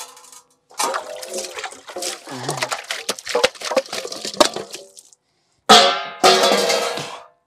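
Steel dishes being washed by hand: a metal bowl clattering and knocking with water splashing, then two longer, louder splashes near the end.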